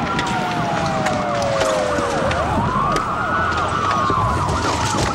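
Police siren wailing, sliding slowly up and down about every three seconds, with a faster-warbling siren tone mixed in beneath it.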